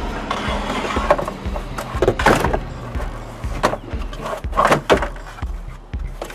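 Black plastic utility shelf unit slid into a minivan's cargo area, scraping and knocking several times as it is pushed and laid flat. Background music plays underneath.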